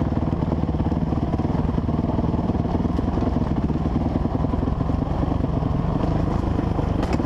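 Honda CRF450R dirt bike's single-cylinder four-stroke engine running steadily under way on a rocky trail, without big changes in revs.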